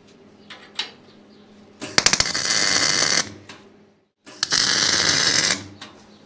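Two tack welds with a MIG welder on the steel plates of a welding table: each opens with a few sharp crackles as the arc strikes, then a steady crackling hiss of about a second and a half, with a short pause between them.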